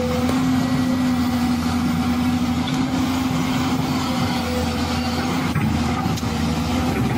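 Radio-controlled toy excavator running: a steady motor hum with a faint whine above it as the machine swings and works its boom and bucket.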